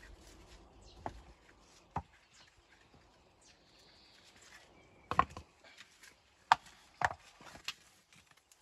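Several sharp, irregular knocks of stone being handled or struck during dry stone walling, with the loudest two about five and six and a half seconds in.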